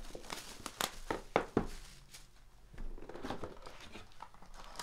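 Grand Reserve basketball card box and its packs being handled: rustling and crinkling of pack wrappers with several sharp taps and knocks, the loudest about a second and a half in, then softer rustles.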